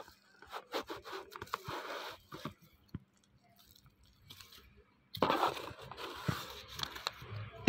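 A cardboard box being opened and its bubble-wrapped contents handled: crinkling, rustling and small scrapes and clicks. It goes nearly quiet in the middle, then turns to louder rustling about five seconds in.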